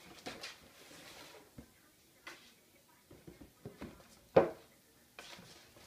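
Kitten pouncing on and shoving an empty cardboard drink case across a tile floor: a run of scrapes, scratches and light knocks, with one sharp thump about four and a half seconds in, the loudest sound.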